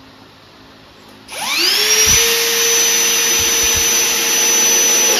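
Cordless drill driving a screw into the corner of a poly beehive super. The motor whines up to speed about a second in, runs steadily for about four seconds, then stops suddenly.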